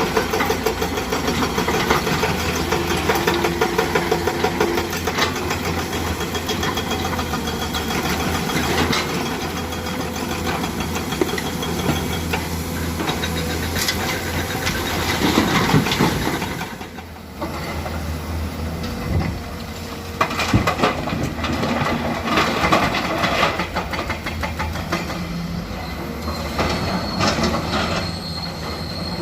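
Komatsu PC200 hydraulic excavator's diesel engine running under load, with repeated clattering and knocking of broken rock as the bucket digs and loads stone. The sound drops briefly about halfway through, then picks up again.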